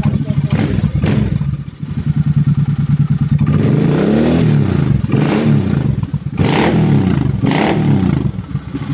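Suzuki Boulevard C50's 805 cc V-twin idling through a custom 2-into-2 full exhaust with straight-cut tips, then blipped several times from about three and a half seconds in, the revs rising and dropping back to idle each time.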